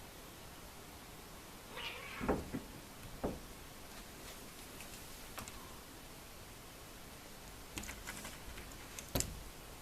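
A domestic cat meowing once, about two seconds in, followed by a scatter of sharp knocks and clicks, with the loudest knock near the end.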